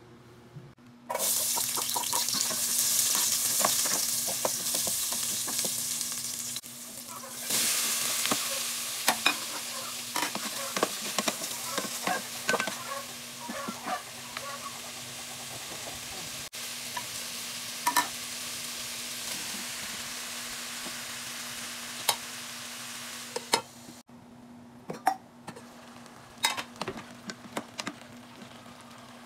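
Chicken pieces sizzling in an aluminium pot while a wooden spoon stirs them, with frequent knocks and scrapes against the pot. The sizzle starts about a second in, breaks off briefly, then dies down about five seconds before the end, leaving only occasional spoon knocks. A steady low hum sits underneath.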